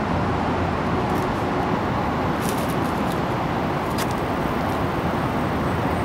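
Steady outdoor background roar, an even rumble and hiss of ambient noise such as distant traffic, with no clear bird calls or splashes standing out.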